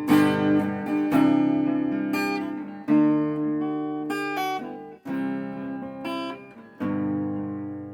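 Acoustic guitar strumming chords with no singing: a chord is struck about every one to two seconds, about five in all, each left to ring and fade.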